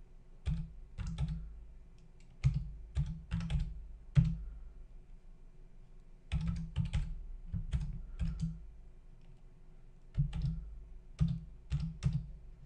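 Computer keyboard being typed on in a few short runs of keystrokes, with pauses of a second or two between runs.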